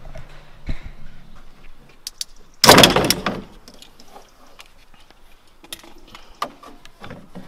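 Clicks, knocks and rattles of a Nissan 350Z's rear wiper motor and its plastic mounting being worked loose inside the tailgate, with one loud clatter about three seconds in.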